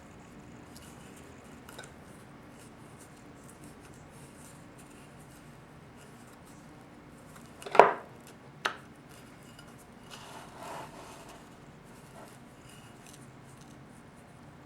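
Small steel parts of a 4L60E transmission oil pump being handled while vanes are worked into the rotor: faint clicks and rubbing, and two sharp metallic knocks under a second apart about halfway through, the first the louder and ringing briefly.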